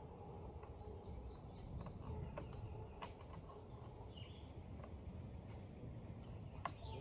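A songbird calling outdoors: a quick run of about seven high, down-slurred chirps, then a second shorter run of about five near the end, over a steady low rumble, with a couple of faint clicks.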